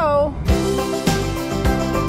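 Background music with a steady beat of about two strokes a second, starting about half a second in.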